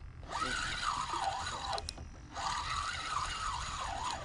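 Spinning reel being cranked to retrieve line with a hooked fish on, its gear whine wavering up and down with each turn of the handle, in two spells with a short pause between, over low wind rumble on the microphone.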